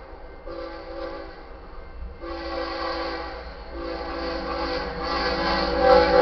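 Diesel locomotive air horn, a chord of several tones, sounding long blasts with brief breaks between them and growing louder, over the low rumble of the approaching train.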